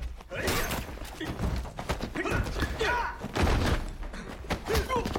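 Hand-to-hand fight sound effects: repeated punches and body blows landing with thuds, mixed with the fighters' grunts and strained breathing.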